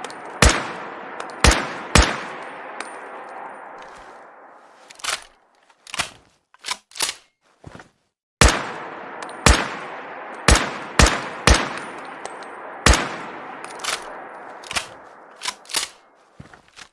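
Rifle gunshot sound effect: sharp shots, each with a long echoing tail, in two bursts (three shots near the start, then about six from just past the midpoint). Each burst is followed by a few shorter, quieter clicks and clacks.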